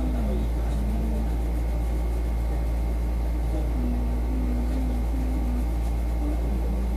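A steady low hum, the loudest sound throughout, with faint indistinct voices in the background now and then.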